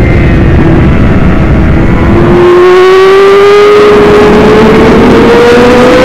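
600cc race bike engine at high revs, its note climbing steadily from about two seconds in as the bike accelerates, with heavy wind rush on the onboard microphone.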